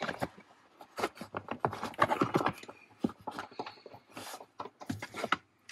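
Seat bolts being fitted and threaded by hand into a pickup's seat mounting bracket: a run of irregular small metal clicks, taps and scrapes.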